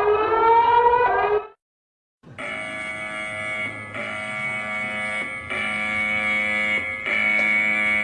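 Emergency alert alarm tones. A rising, wailing alert tone cuts off about a second and a half in. After a short gap a steady buzzing alarm of several pitches at once sounds, changing slightly every second or so.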